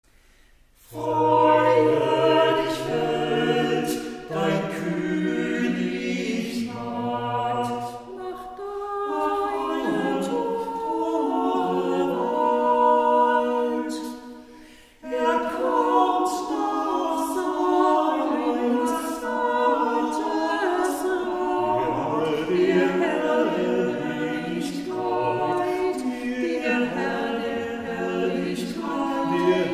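A small group of singers singing a hymn a cappella in parts, with the long echo of a stone church. The singing starts about a second in and breaks off for a moment around the middle before the next phrase.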